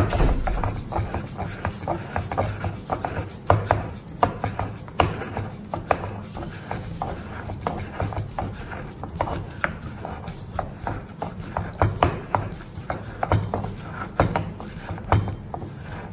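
Stone pestle pounding mint leaves and sugar in a stone mortar, crushing them to a paste: irregular dull knocks, a few a second.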